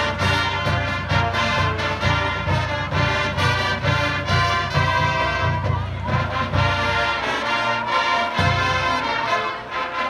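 Live marching band playing a brass-led tune over a steady drum beat. The low drums and bass drop out for a moment near the end.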